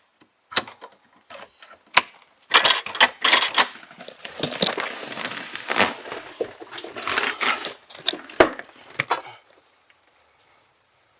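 Hand handling of small car-interior parts on a workbench: a string of sharp knocks and clicks, then a longer stretch of rustling and scraping with more knocks mixed in.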